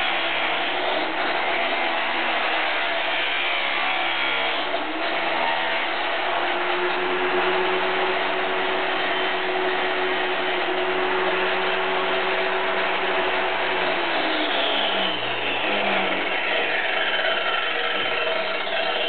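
Angle grinder mounted on a homemade pendulum-saw stand, its abrasive disc cutting through steel angle iron with a loud hum and grinding. After about 14 seconds the pitch falls steadily as the disc winds down.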